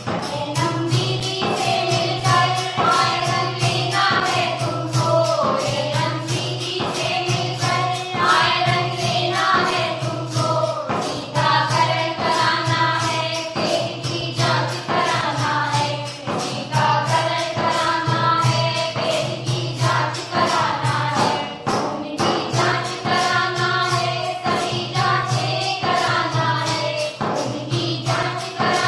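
Background music: a song with voices singing over a steady beat.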